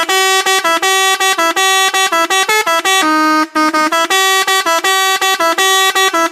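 Indonesian bus 'telolet' musical horn playing a quick, loud tune of short notes, with one longer held note about three seconds in.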